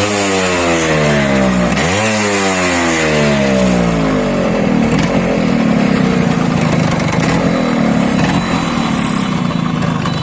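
Yamaha RX-Z two-stroke single-cylinder engine breathing through a stock 5-speed CET silencer, revved sharply once about two seconds in, the revs falling away slowly before it settles into a steady idle; another quick rev starts at the very end.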